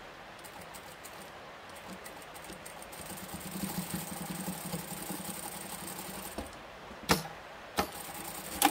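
Sewing machine stitching a zip onto fabric: the motor runs with a steady hum that grows stronger about three seconds in and stops after about six and a half seconds. Three sharp clicks follow near the end.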